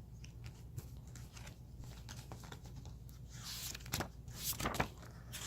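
Pages of a paper book being turned and handled: a soft rustle past the middle, then a few sharp clicks and taps near the end.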